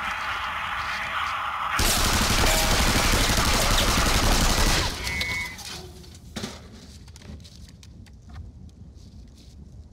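A heavy volley of rifle fire, many shots overlapping for about three seconds, then cutting off abruptly. A few faint scattered shots and a thud follow.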